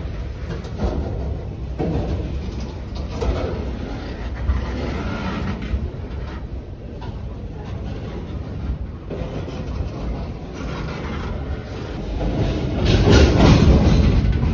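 Freight train of boxcars rolling past: a steady low rumble of steel wheels on rail with scattered clacks, getting louder near the end.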